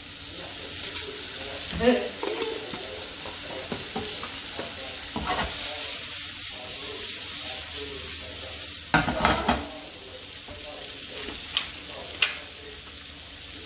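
Sliced onion, celery and garlic sizzling steadily in a frying pan while being stirred. A utensil knocks against the pan now and then, with a quick cluster of knocks about nine seconds in.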